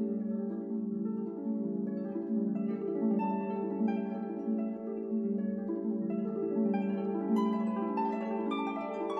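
Background instrumental music of plucked notes in a flowing run of overlapping tones.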